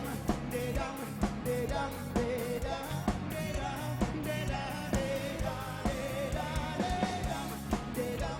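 Live pop-rock band music: drums on a steady beat with a sung melody line over it.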